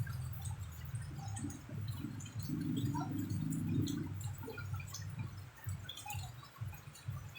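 Water splashing and dripping, with an uneven low rumble underneath and many small scattered drips.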